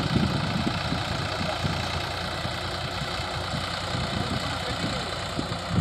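New Holland 3230 TX tractor's three-cylinder diesel engine idling steadily.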